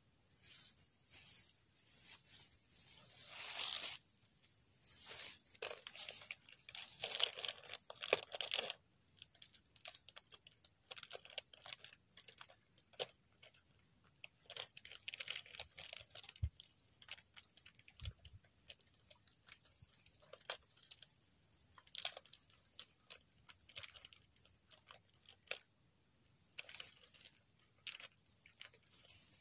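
Irregular rustling and crackling close to the microphone, densest and loudest in the first nine seconds and sparser after, over a faint steady high whine.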